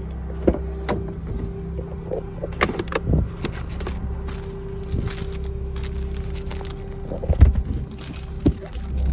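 A car door opened by its handle, then scattered clicks, knocks and rustling as things are handled inside the car, the loudest knock about seven and a half seconds in. A steady hum of the car running lies underneath.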